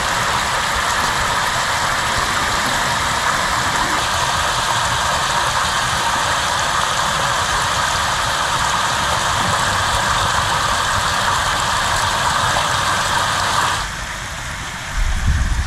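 Water pouring over a small concrete weir: a loud, even rushing that drops off about fourteen seconds in, followed by a few low thumps.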